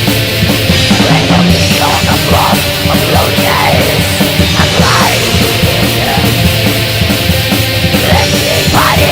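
Heavy metal music from a studio recording: a loud, dense mix with no break.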